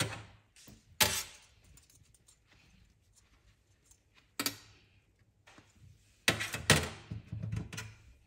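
A handful of sharp clicks and clinks of small metal watch parts and tools being handled, spaced a few seconds apart, with a closer cluster of knocks near the end.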